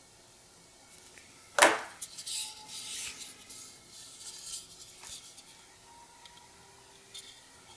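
Hands handling a Kingston XS1000 portable SSD and its USB cable. There is a sharp clack about one and a half seconds in, then light rubbing and scraping, with a smaller click about five seconds in.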